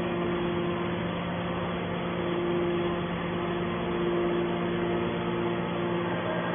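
Steady hum of a hydraulic scrap metal baler's electric motor and pump running at idle, with a low held tone and a higher whine that drops out for a moment near the start and then returns.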